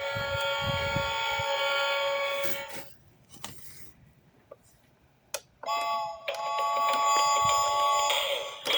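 Electronic sound effects from a Titipo toy train's small speaker: a steady buzzer-like tone for about three seconds, the door-closing signal. After a pause and a click, a second electronic tone starts about five and a half seconds in, and a jingle begins just before the end.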